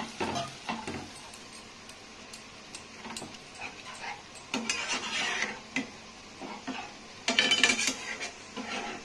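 Spatula stirring and scraping watery masala gravy in a metal pan, with scattered clinks of utensils. Two louder bursts of noise come about five and seven and a half seconds in.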